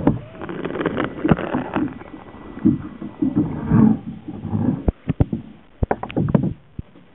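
Water sloshing and rumbling against a camera held underwater beside a kayak, then about five seconds in a run of sharp clicks and knocks.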